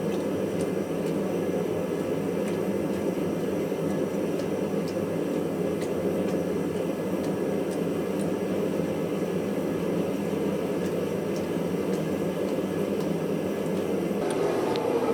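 Forge running with an even, low rushing noise that holds steady throughout, as steel is brought back up to heat for a water quench.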